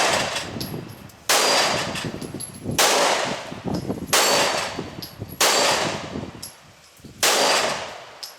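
Five gunshots in slow, steady single fire, about one every one and a half seconds, each trailing off in a long echo.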